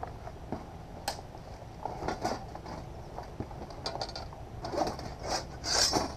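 Longsword sparring: a scattered series of sharp clacks and knocks from blades meeting and fighters scuffling as they close and grapple, the loudest cluster near the end.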